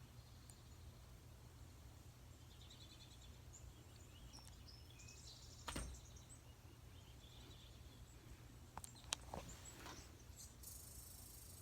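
Faint recorded birdsong playing quietly over a low steady hum, with a few sharp clicks about six and nine seconds in.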